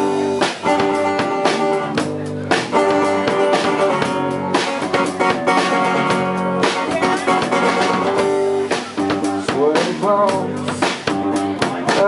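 Live band playing: acoustic-electric guitar, electric bass and a Pearl drum kit together at a steady level.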